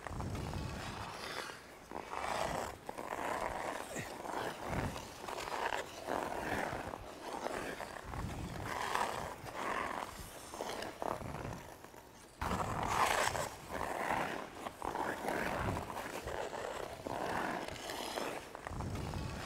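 Hockey skate blades carving and scraping the ice in repeated pushes, a rough swish with each stride roughly once a second, the loudest a little past halfway.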